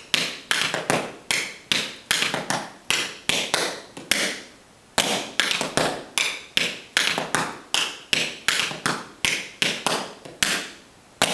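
Tap shoes striking a hard floor in a run of cramp rolls (ball, ball, heel, heel): quick groups of sharp metal clicks, with a short pause about four seconds in and a single sharp tap near the end.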